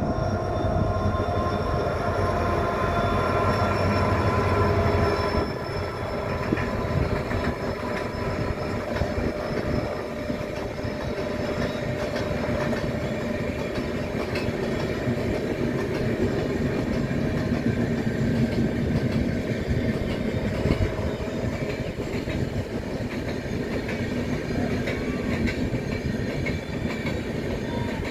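Express train passing: the locomotive runs by with a steady engine tone for the first five seconds or so, then the passenger coaches roll past with a steady running noise and clickety-clack from the wheels over the rail joints.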